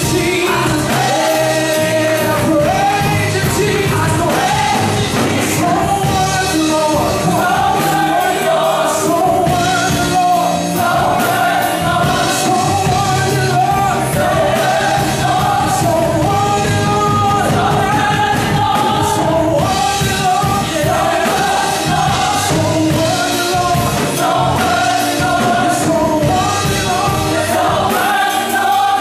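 Live gospel praise and worship music: singers with a full band, loud and steady.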